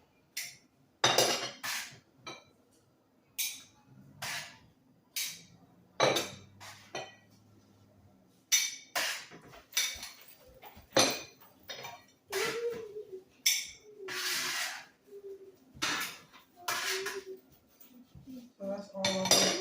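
Plates and serving utensils clinking and knocking as food is set out onto plates, a string of separate sharp clinks and clatters.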